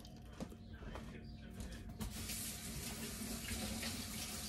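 Kitchen tap turned on about two seconds in, water running steadily into the sink as hands are washed, after a couple of light clicks.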